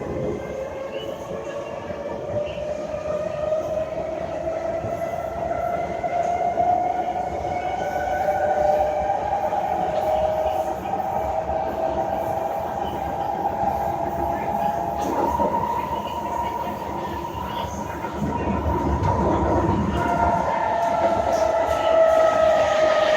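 SMRT C151 metro train heard inside the carriage: steady wheel-and-track rumble under the whine of the electric traction motors. The whine climbs slowly in pitch for about fifteen seconds, then from about twenty seconds in a new whine sets in and falls in pitch as the train slows.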